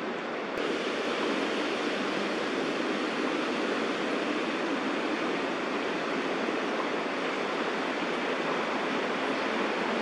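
Steady rushing outdoor background noise with no distinct events, getting a little louder about half a second in. No bird call is heard.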